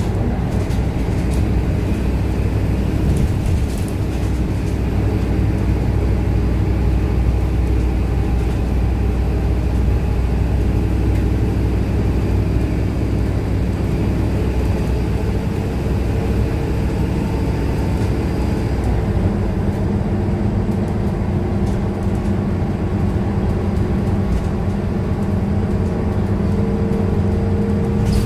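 Scania K230UB single-deck bus's rear-mounted five-cylinder diesel engine and drivetrain running steadily at road speed, heard from inside the passenger cabin along with tyre and road noise. The engine note shifts about two-thirds of the way through.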